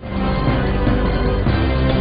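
Opening theme music of a TV news programme, starting abruptly: sustained chords over a deep bass.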